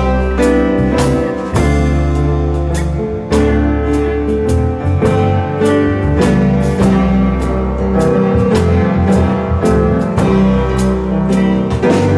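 Grand piano playing an instrumental piece, with chords struck one after another over sustained low bass notes.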